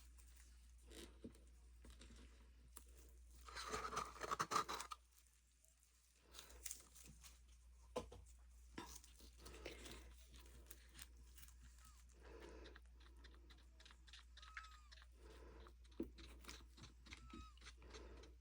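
Faint scraping and small clicks of a stir stick working resin in a plastic mixing cup, with one louder rustling, crinkling burst about four seconds in.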